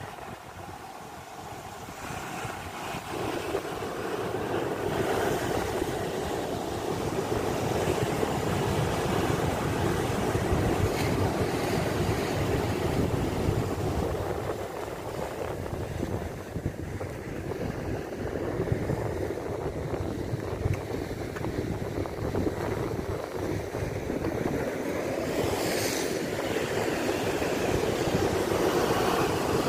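Sea waves breaking and washing over low rocks, with wind buffeting the microphone. The surf grows louder over the first few seconds, then keeps up a steady roar that swells and eases.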